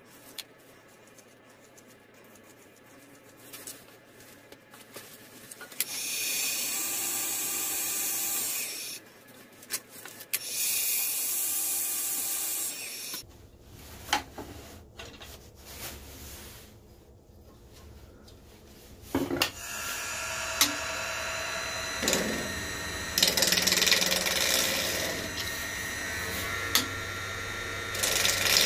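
Two steady hisses of about three seconds each. Then a wood lathe's motor starts humming about halfway through, and a gouge cuts the spinning cherry-wood goblet stem, the cutting coming in uneven spells and growing louder near the end.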